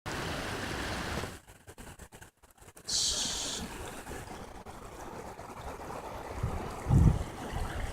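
Steady rush of running water that drops away for a moment about a second in, with a short high hiss about three seconds in and a low thump near the end.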